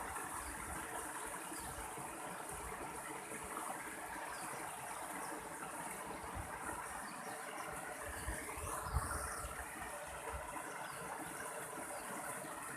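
A mountain stream flowing steadily, its water rushing without a break. A brief high glide is heard about nine seconds in.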